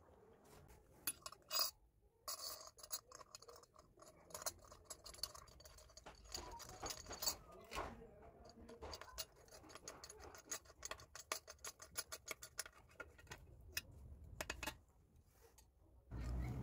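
Screwdriver working the centre screw of a washbasin's metal drain strainer: many quick metallic clicks and scrapes.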